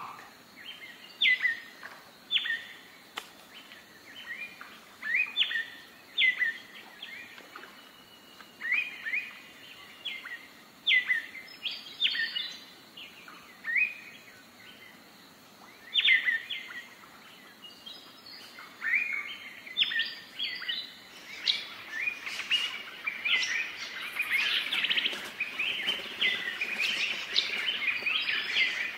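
Wild birds calling in forested hills: short, high chirps with quick falling sweeps, a few every second or two, growing denser and overlapping near the end.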